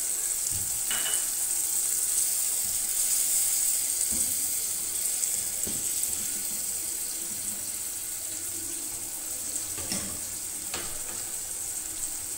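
Tomato masala in a pot sizzling and bubbling steadily, with water just added to soften the tomatoes. A few faint knocks of a spoon stirring.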